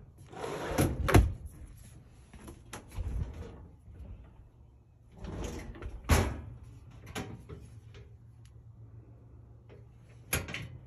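Wooden kitchen drawer sliding shut with a knock about a second in, followed by several lighter knocks and handling sounds. Near the end comes a sharp clack as the stove's hinged top cover is lifted.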